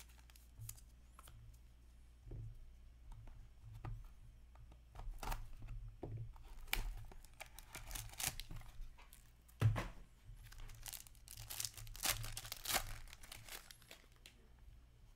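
Hands opening an Upper Deck Black Diamond hockey card box: cardboard and plastic packaging tearing and crinkling in bursts, after a few light clicks, with a single knock about ten seconds in.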